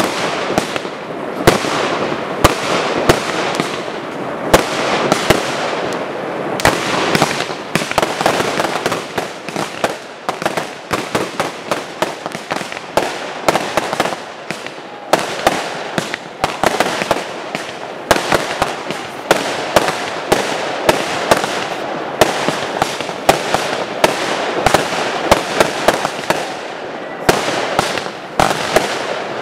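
Fireworks display: a dense, unbroken barrage of aerial shell bursts, with sharp bangs several times a second and crackling between them.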